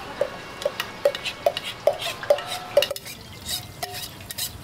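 Metal utensil clinking against a metal bowl or pan in a steady rhythm, a little over two ringing strikes a second, then looser, quieter clatter in the last second or two.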